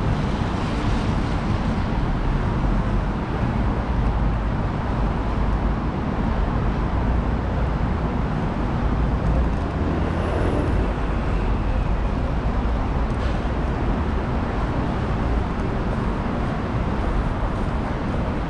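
Steady road traffic on a busy city street: a continuous rumble of cars and other vehicles passing.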